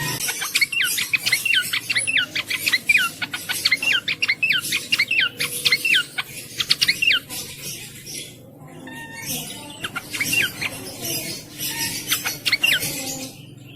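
Cingcoang (shortwing) singing: a fast run of short, high, falling notes lasting about seven seconds, then after a pause two brief bursts of the same notes.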